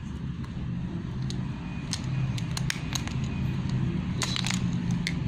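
Homemade shampoo slime being stretched and squished by hand, giving scattered small clicks and crackles over a steady low hum.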